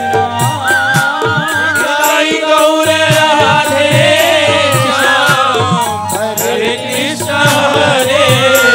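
Live Hindu devotional kirtan music: a sustained, wavering melody line over a steady beat of hand drum and jingling percussion.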